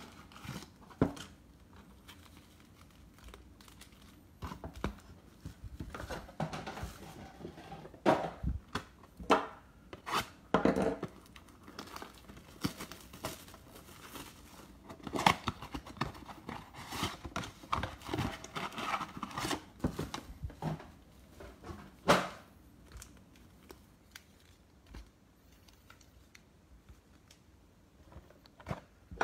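Cardboard trading-card boxes being torn open and the foil card packs inside pulled out: irregular tearing, crinkling and light taps, quieter for a few seconds near the end.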